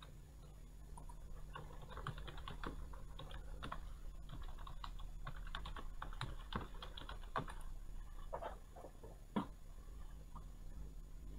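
Typing on a computer keyboard: a run of quick key clicks starting about a second and a half in, with one louder click near the end, over a low steady hum.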